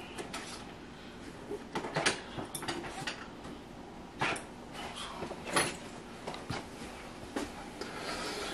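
A handful of sharp, scattered clicks and knocks of objects being handled, over a faint steady background.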